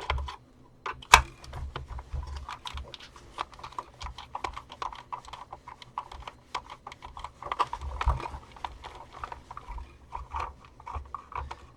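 Quick, irregular small clicks and scrapes of a hand screwdriver turning screws out of the plastic housing of a handheld vacuum, with one sharper click about a second in.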